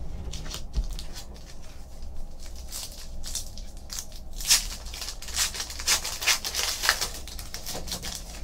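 Foil trading-card pack torn open by hand: a run of crackling rips and crinkles, loudest about midway, as the wrapper is pulled apart from around the cards.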